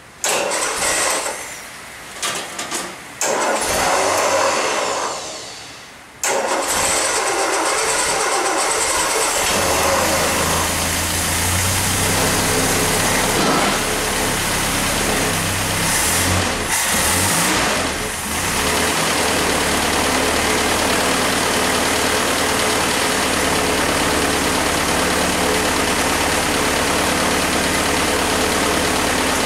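1961 Land Rover four-cylinder petrol engine being started for the first time after a full rebuild, choke held open. It cranks and fires unevenly in short bursts, then catches about six seconds in and keeps running steadily.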